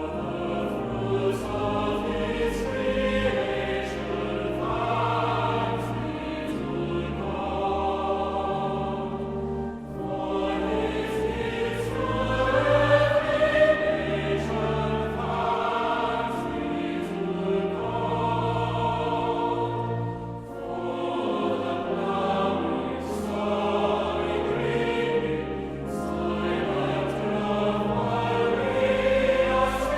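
A choir singing a hymn in parts, with sustained low bass notes beneath the voices.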